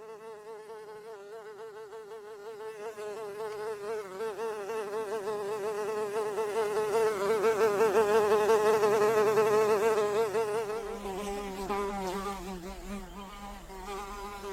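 Blowfly buzzing in flight, a wavering drone whose pitch wobbles continuously as it flies. It grows louder towards the middle, as if passing close, then fades a little.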